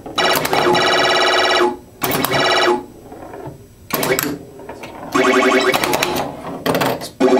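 Atari pinball machine playing its electronic game tones: a series of pitched bursts, some over a second long, with short gaps between.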